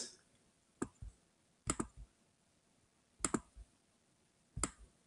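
Faint, sharp clicks from a computer mouse and keys, in four small clusters of one to three clicks roughly every second and a half, as text in a document is selected and edited.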